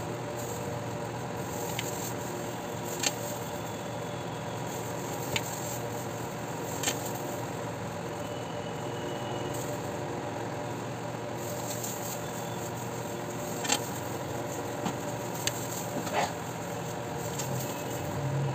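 Steady mechanical hum of a running motor, such as a fan or appliance, with a few sharp light clicks and taps scattered through.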